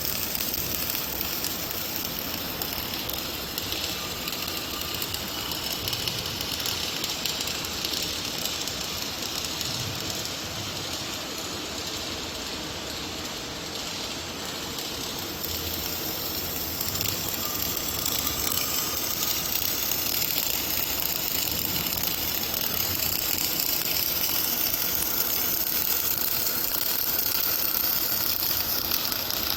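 Robotic arc welding: a continuous crackling hiss from the welding arc, steady throughout and a little louder from about halfway through.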